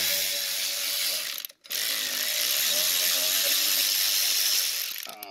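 Cordless power ratchet on a long extension spinning out the 7/16 bolts that hold the electric motor. It runs in two bursts: a short one, a brief stop, then a longer one of about three seconds, with a steady whine.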